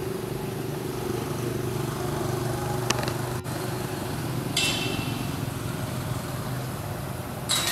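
A steady low engine hum, with a sharp click about three seconds in and two short high-pitched chirps, one about halfway through and one near the end.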